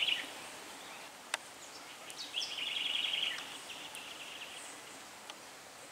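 Quiet outdoor ambience with a rapid, high, pulsing trill from a small bird or insect about two seconds in, lasting about a second and then fading. A single sharp click comes just over a second in.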